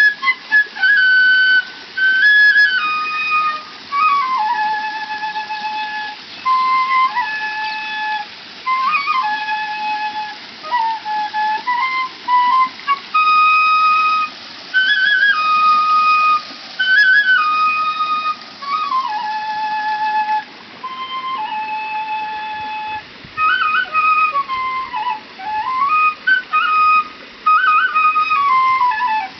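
Transverse bamboo flute playing a slow melody of held notes that step up and down, joined by quick ornamented runs.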